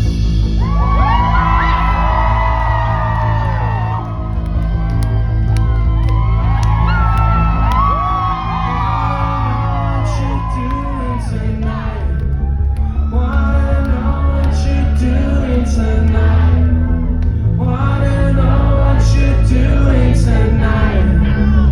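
Live band performing a pop-rock song, a singer's voice over heavy bass, echoing in a large concert hall.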